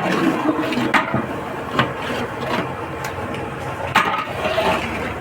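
Kitchen background noise: a steady mechanical hum with a few sharp knocks, at the start, about one and two seconds in, and again about four seconds in.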